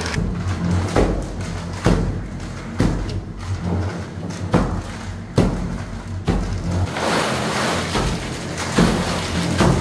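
Background music with steady low tones, over a regular thud about once a second.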